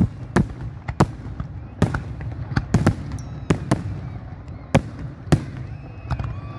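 Fireworks display: a dozen or so sharp bangs from bursting shells at irregular intervals, some in quick clusters, over a continuous low rumble.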